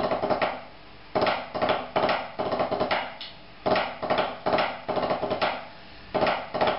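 Drumsticks on a rubber practice pad playing a short rudimental snare phrase: a few accented strokes ending in a quick ruff, repeated about every two and a half seconds with a brief pause between repeats.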